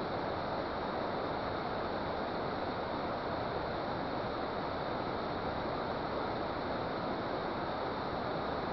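Steady, unbroken rush of flowing water at a dam.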